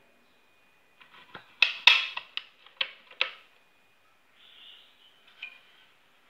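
Metallic clicks and clacks from the action of a PCP air rifle being handled, a quick run of them about a second in and one more near the end.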